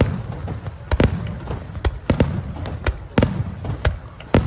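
Fireworks bursting: an irregular run of sharp bangs and cracks, two or three a second, over a low rumble.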